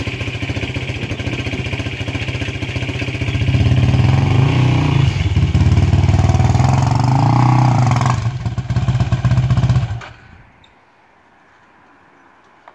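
Sport ATV engine running with a rapid, even exhaust pulse, growing louder and revving a few seconds in as the quad climbs a loading ramp into a pickup bed, then shut off about ten seconds in.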